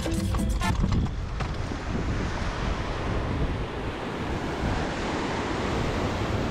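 Ocean waves breaking and washing over jetty rocks, with wind on the microphone, as a steady rush. Music fades out within the first second.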